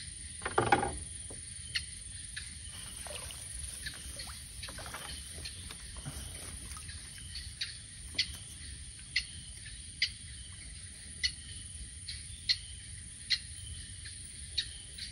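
Night insect chorus: a steady high trill with short, high chirps about once a second. Under it are soft water sounds from a small wooden canoe drifting and being paddled.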